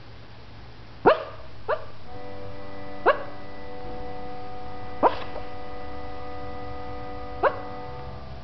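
Chihuahua–pug mix giving short barks in its sleep while dreaming: five separate sharp yips, each dropping quickly in pitch, spaced one to two and a half seconds apart.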